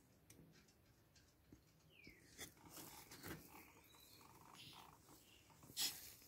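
Near silence with faint scattered rustles and ticks, then a brief louder rustle near the end as a turtle is lifted out of damp moss and soil by hand.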